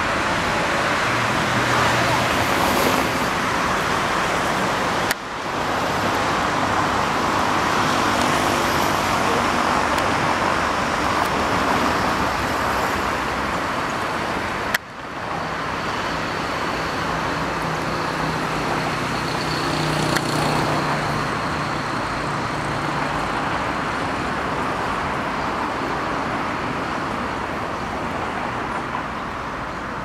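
Steady noise of road traffic with a faint low hum of engines, broken twice by abrupt cuts.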